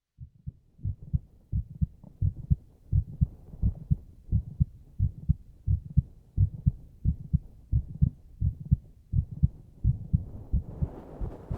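A human heartbeat heard close up: a steady double thump (lub-dub), a little faster than one beat a second. A soft rushing noise swells under the beats near the end.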